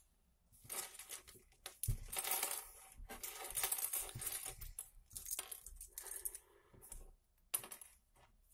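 Small plastic Lego bricks clicking and clattering in quick, irregular runs, as loose pieces are sorted through and handled.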